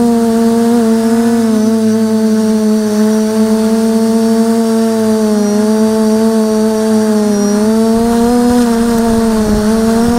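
Electric motors and propellers of a 550 mm quadcopter heard through its onboard camera: a loud, steady buzz whose pitch dips and rises slightly a few times as it flies.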